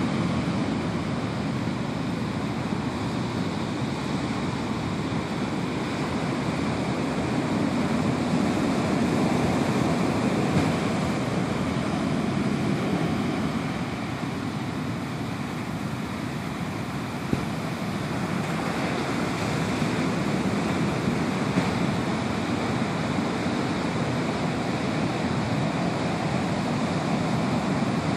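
Large breaking ocean surf with foam washing up a sandy beach: a continuous rush of broken water that eases a little about halfway through and builds again.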